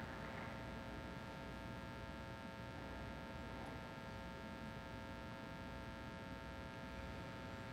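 Quiet ice-rink room tone: a steady hum of several even tones over low background noise, with the last of the applause dying away right at the start.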